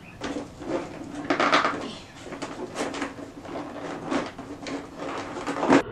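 Plastic packaging and cardboard rustling and scraping as hands rummage in a cardboard box, in a run of irregular crinkles, with a sharp loud one near the end.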